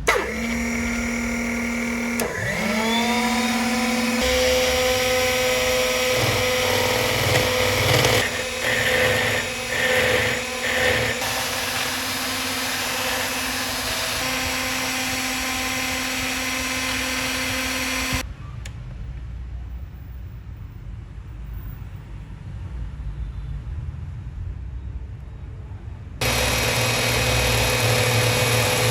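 Small electric motor of a homemade miniature power tool running with a steady whine, spinning up in pitch about two seconds in. It drops to a much quieter sound at about eighteen seconds and comes back up loud near the end.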